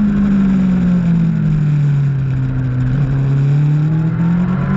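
Race superbike engine running under load, its revs easing down smoothly and then climbing again near the end.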